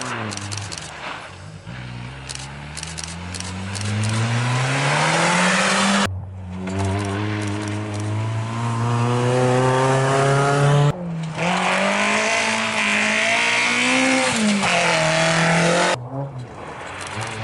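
Rally cars accelerating hard, one after another, engines revving up through the gears with short pitch drops at the shifts, over tyre and road noise. The sound breaks off abruptly three times as the next car's run begins.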